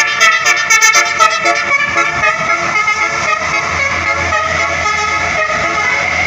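A tour bus's multi-tone 'telolet' musical horn sounding: a quick run of changing notes in the first second or so, then held, steadier horn tones.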